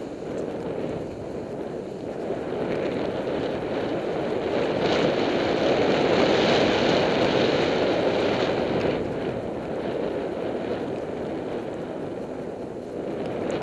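Steady rushing hiss of sliding downhill over fresh snow, mixed with wind on the microphone, growing louder and brighter for a few seconds in the middle.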